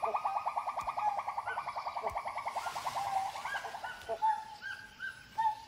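Gibbon calls: a fast trill of hooting notes, about ten a second, slowly dropping in pitch and dying away about three and a half seconds in, then separate short rising whoops about every half second.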